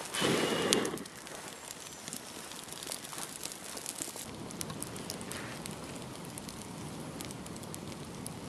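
Small stick-and-tinder campfire catching and burning, with scattered crackles and pops over a soft hiss. A louder rush of noise fills the first second.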